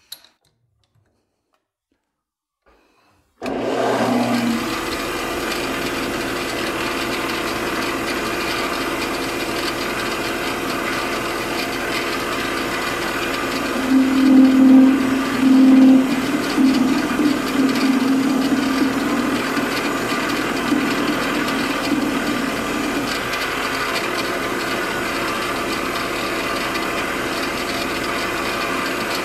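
After about three seconds of near silence, a metal lathe starts abruptly and runs steadily, its drive whining in several steady tones. About halfway through, the carbide tool facing the end of a thumb screw adds a louder cutting sound for a couple of seconds as it takes the part down to length.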